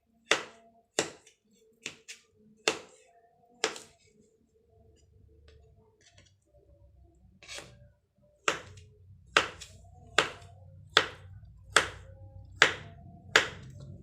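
Knife chopping on a cutting board: sharp single strokes, a few at first and then a steady run of about one a second in the second half. A low steady hum starts about halfway in.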